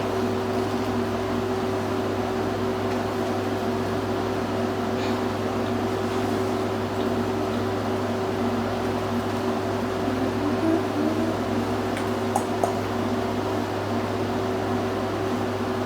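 A steady mechanical hum: a low drone with two higher steady tones over an even hiss, with a few faint clicks about twelve seconds in.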